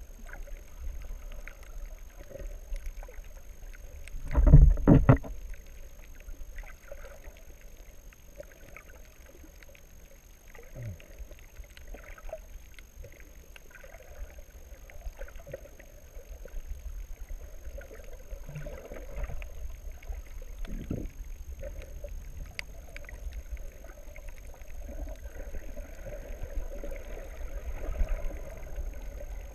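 Muffled underwater sound through a camera's waterproof housing: a steady low rumble of water movement with faint scattered clicks, and a short loud cluster of thumps about four seconds in.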